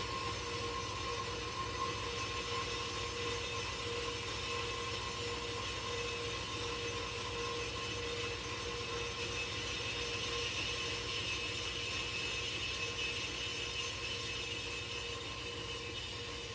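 JET horizontal metal-cutting band saw running, its blade sawing through a steel channel: a steady whine over a low, evenly pulsing hum.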